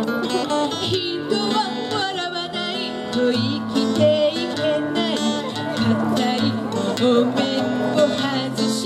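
A woman singing a bright, upbeat melody with steady strummed acoustic guitar accompaniment, amplified through microphones.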